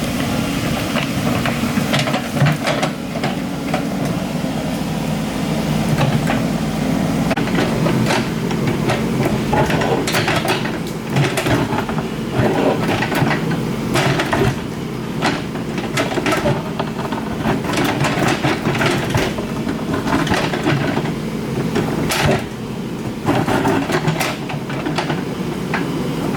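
Excavator's diesel engine running steadily under load, with repeated irregular clanks and knocks of metal against rock and earth.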